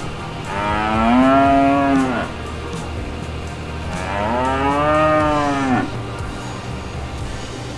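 A cow mooing twice, two long calls that each rise and then fall in pitch, the first starting about half a second in and the second about four seconds in, over a steady low hum.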